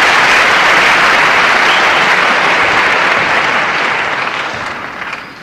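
Audience applauding, the clapping fading away over the last second or so.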